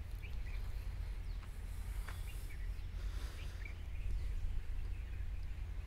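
Birds chirping here and there over a steady low rumble.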